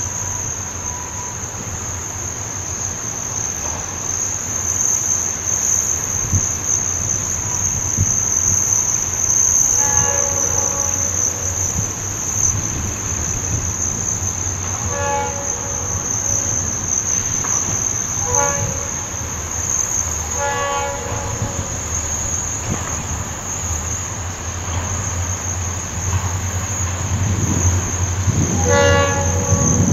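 A locomotive's multi-chime air horn sounds about five separate blasts, fainter at first and loudest near the end as the train's rumble builds on approach. A steady high-pitched drone of insects runs underneath.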